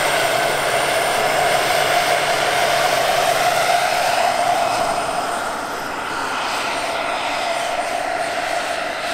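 Turbine engine and rotors of a large-scale radio-controlled Eurocopter H145 model helicopter in flight: a steady turbine whine over rotor noise, loudest as it passes close, then dropping somewhat about five and a half seconds in as it moves away.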